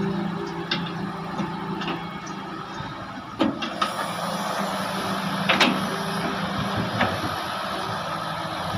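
Heavy excavator's diesel engine running steadily under load, with a string of sharp metallic clanks from the machine working, the loudest two about a third and two thirds of the way in.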